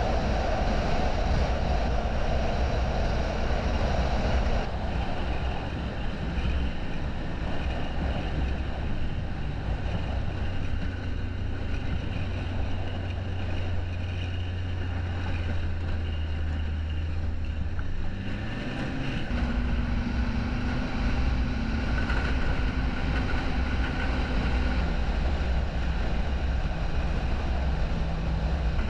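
Snowmobile engine running steadily under way, then revving up to a higher pitch about two-thirds of the way through, holding there, and easing back near the end.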